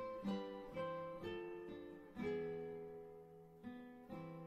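Background music: an acoustic guitar playing slow plucked notes and chords, each one struck sharply and left to ring and fade before the next.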